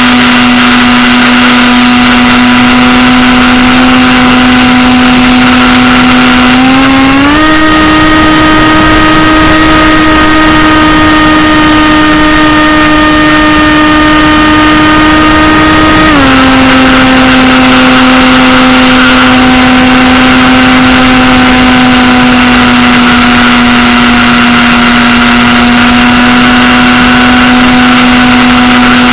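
Electric motor and propeller of an AXN radio-controlled plane, heard from a camera mounted on the airframe: a loud, steady whine with wind noise. About seven seconds in the pitch steps up as the throttle is opened, and about nine seconds later it drops back to cruise.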